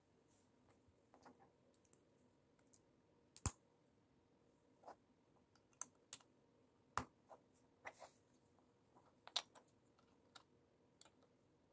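LEGO plates and bricks being pressed and snapped together by hand: scattered, irregular small plastic clicks and taps, with three louder snaps, about three and a half, seven and nine seconds in.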